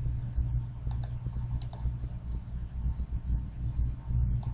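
Computer mouse clicks: a few short, sharp clicks, coming in two close pairs about a second and a half apart, then one more near the end, over a steady low hum.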